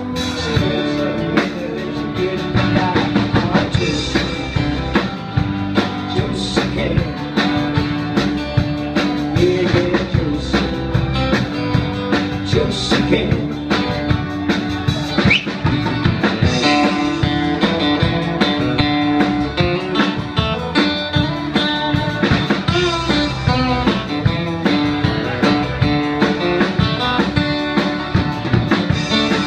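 Live band playing amplified guitars over a drum kit, with a steady beat.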